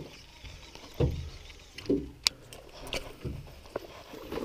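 Hooked peacock bass splashing at the side of a boat as it is landed with a lip grip: a few dull knocks and splashes and several sharp clicks.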